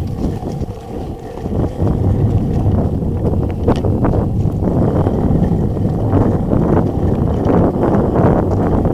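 Mountain bike riding fast down a bumpy dirt trail: wind buffeting the microphone, with the bike rattling and knocking over the bumps, more often from a few seconds in.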